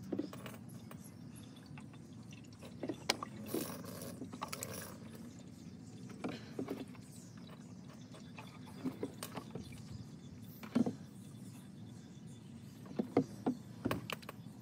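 Motor oil glugging out of a plastic jug into a plastic funnel in an engine's oil filler, with a few scattered light clicks and knocks of the jug against the funnel.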